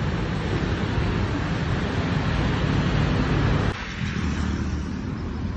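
Road traffic on a city street, with motorbikes and cars passing in a steady rumble of engines and tyres. About two-thirds of the way in it drops abruptly to a quieter, thinner traffic hum.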